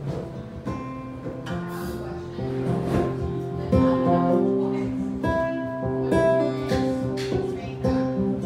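Acoustic guitar played alone in an instrumental passage of a folk song, chords ringing on with a fresh attack about every second and no singing.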